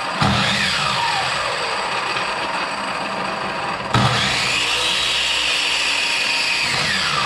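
Old chop saw's electric motor switched on in bursts: a whine falling away early on, then switched on again about four seconds in, winding up to speed, holding, and winding down near the end.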